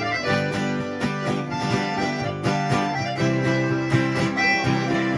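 Instrumental break in a caipira song: acoustic guitars plucking and strumming the melody and accompaniment between sung verses.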